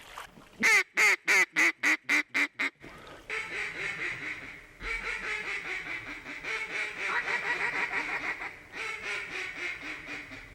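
Hand-blown duck call: a quick series of about eight loud quacks, then a long run of rapid, chattering quacks with two short pauses, as used to lure ducks in to decoys.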